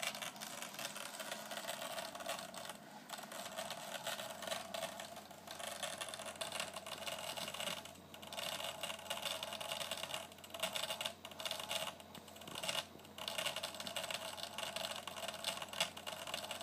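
HP Personal Media Drive external hard disk making an abnormal, rapid mechanical clattering and rattling, with a few brief irregular pauses. The noise is the sign of a defective, damaged drive.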